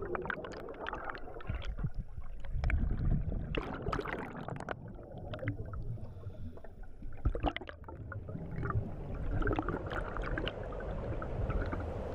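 Underwater scuba sound: divers' exhaled regulator bubbles gurgling and crackling in irregular gushes over a steady low rumble.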